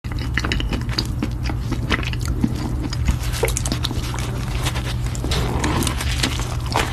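Close-miked eating sounds: a person biting and chewing food, with many irregular wet, crackly clicks over a steady low hum.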